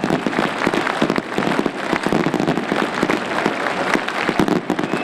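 A long string of festival firecrackers crackling, many sharp irregular bangs a second without a break, set off to announce the celebration.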